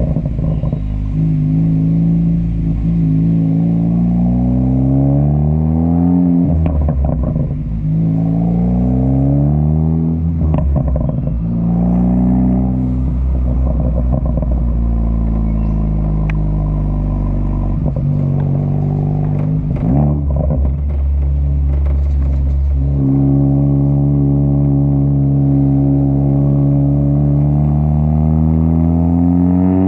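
Ford Focus ST with a catless downpipe and muffler-delete exhaust accelerating hard. The pitch climbs, drops sharply and climbs again several times, typical of shifting up through the gears. Short crackles come from the exhaust at the pitch drops, as the crackle tune intends.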